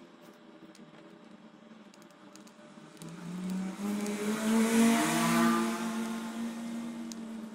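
A motor vehicle's engine passing by: a hum that swells about three seconds in, is loudest near the middle, then fades, with a few faint small clicks.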